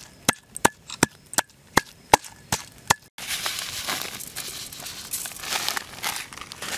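A pestle pounding red chilies and garlic in a metal bowl, about eight sharp strikes at roughly three a second. After a cut about three seconds in, a steady rustling hiss as seasoning granules are sprinkled over raw pork in a pot.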